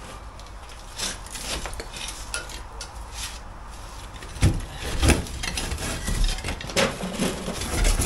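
Gloved hands clearing loose cavity-wall insulation and block debris out of a cut opening in a blockwork wall: scattered scraping, rustling and light clinks of concrete block fragments, with a couple of louder knocks about four and a half and five seconds in.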